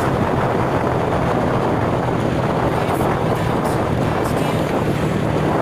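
Steady wind noise on the microphone mixed with engine and road noise from a vehicle moving along a road, with a constant low hum underneath.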